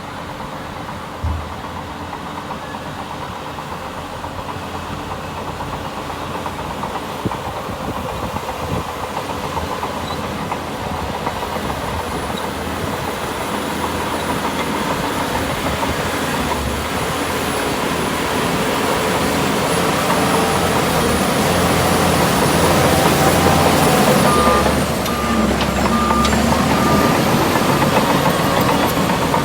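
Diesel engine of heavy earthmoving machinery running steadily and growing louder as it draws closer. A reversing alarm beeps repeatedly for a few seconds near the end.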